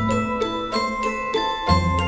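Background music: a melody of struck, ringing notes over a deep bass line.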